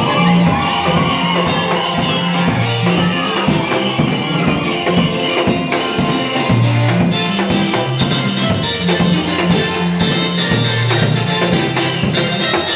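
Band music: drum kit keeping a steady beat under bass and guitar, with no singing.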